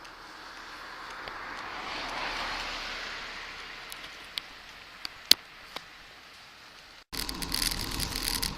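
Road noise from a vehicle passing a bicycle: a soft hiss that swells and fades over a few seconds, with a few sharp ticks after it. About seven seconds in it cuts off suddenly, and much louder rattling noise begins.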